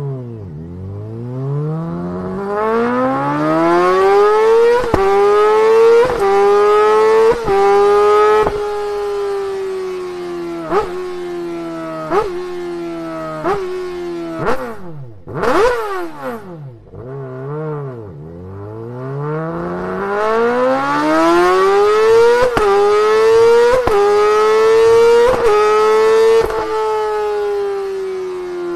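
Honda CBR1000RR-R Fireblade SP inline-four accelerating hard through the gears, twice. Each time the revs climb to a high wail and drop sharply at every upshift, with a short lull between the two runs.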